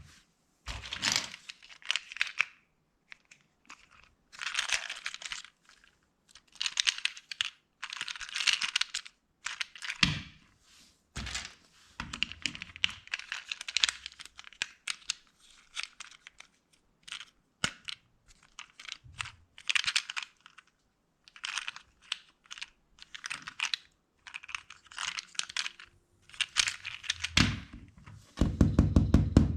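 Plastic LEGO pieces being handled and pressed together: short bursts of rattling, crackling clicks with gaps between them, and heavier knocks near the end.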